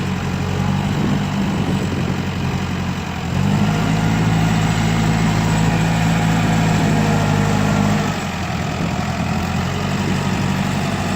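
Case 650L crawler bulldozer's diesel engine running steadily. It gets louder about three seconds in and eases back about eight seconds in.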